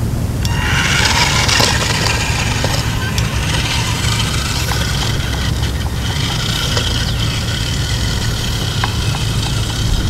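A motor running steadily, a layered whine over a low rumble, as the toy RC rock crawler drives over rough dirt.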